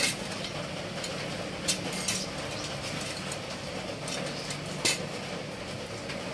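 Steel motorcycle spokes clinking against the chrome rim and hub as they are threaded in by hand: a few sharp metallic clicks, two close together about two seconds in and another near five seconds. A steady low hum runs underneath.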